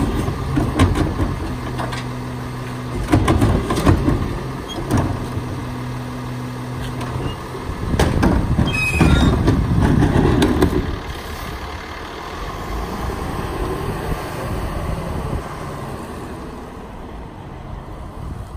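Freightliner M2 rear-load garbage truck's engine running with a steady drone while trash carts are tipped into its Pak-Mor rear hopper, with sharp clanks and bangs from the cart tipper. There is a louder, rougher stretch about eight to eleven seconds in, after which the truck pulls away and its sound slowly fades.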